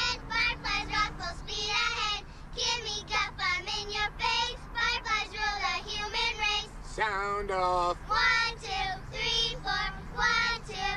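Children's high voices singing in quick syllables, with two sharp rising cries about seven seconds in.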